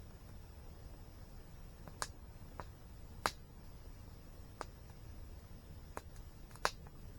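Wood fire crackling: about half a dozen sharp pops at irregular intervals over a steady low background rumble.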